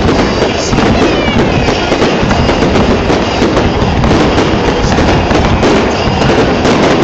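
Aerial fireworks going off close by in a steady, rapid barrage: overlapping shell bursts with the crackle of rising comets, and no pauses between them.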